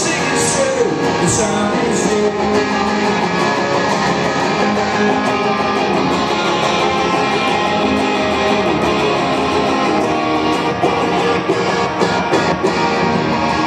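Electric guitar played live through a PA in a rock song's instrumental passage, mostly without vocals.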